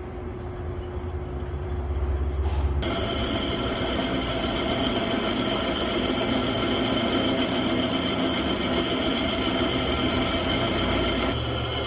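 A 1978 Buffalo pedestal drill press with a 1 HP motor running: a steady machine hum with a higher whine. It builds over the first two seconds and turns suddenly brighter and louder about three seconds in.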